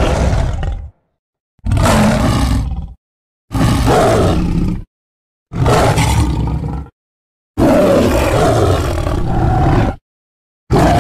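A string of big-cat roar sound effects made for a sabre-toothed cat (Smilodon), played one after another with dead silence between: the end of one roar, then four full roars of about a second and a half, a longer one of over two seconds, and another starting near the end.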